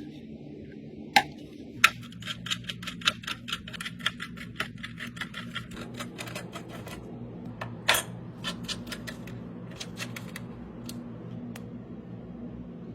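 A run of quick sharp clicks, about four or five a second, thinning to scattered single clicks, with a few louder ones; a steady low hum underneath.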